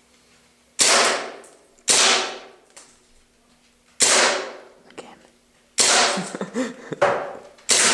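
TSD M9 Beretta green-gas blowback airsoft pistol firing five shots, each a sharp crack with the slide cycling, very loud. They come irregularly: two about a second apart, then three at roughly two-second gaps. Each shot rings briefly off the bare concrete basement walls.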